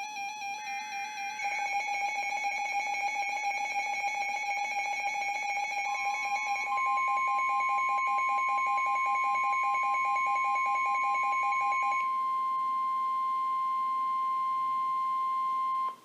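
Emergency Alert System alert tones from several weather radio receivers sounding at once. A short SAME data burst comes about a second in, then layered steady and pulsing alert tones. From about six seconds in, a steady 1050 Hz NOAA Weather Radio warning tone joins; it carries on alone after the other tones stop, then cuts off abruptly near the end.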